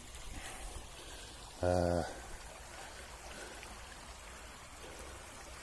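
Small stream flowing over a shallow riffle, a steady rushing and rippling of water. About a second and a half in, a man gives a brief low hum.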